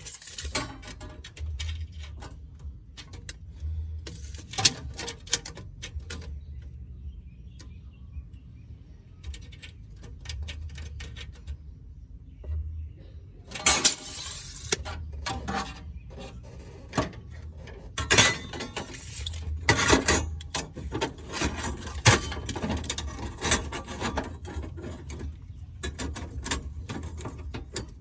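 Intermittent clinks, clatter and scraping of sheet metal and hand tools being handled during floor-pan patch work, with several louder bursts of metal noise.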